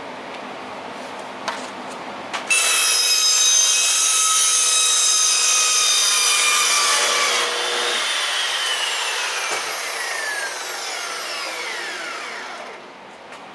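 Metal chop saw starting up and cutting an angled pie cut through 2.5-inch 304 stainless steel tubing, a loud steady whine with a hissing grind for about five seconds. The motor is then switched off and its whine falls in pitch for several seconds as the blade spins down. Two light clicks come just before it starts.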